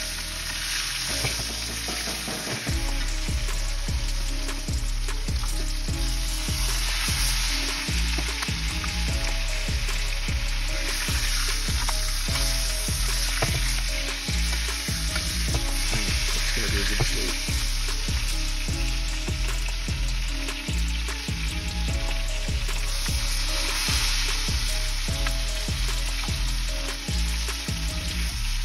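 Melted butter sizzling in a cast iron pan as a steak is basted in it, with a metal spoon repeatedly scooping and knocking against the pan.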